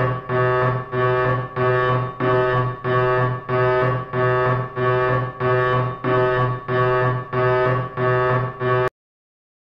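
Background music: a low, sustained note repeated in even pulses about twice a second, cutting off suddenly near the end into silence.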